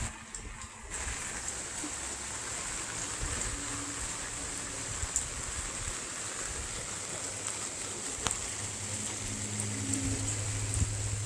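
Heavy downpour of rain, a dense steady hiss of rain falling, with one sharp click about eight seconds in.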